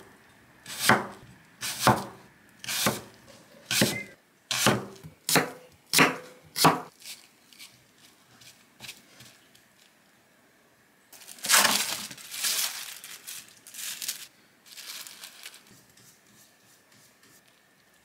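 Knife cutting through an apple and striking a wooden chopping board, about one cut a second for the first seven seconds. After a pause, plastic wrap crinkles for a few seconds.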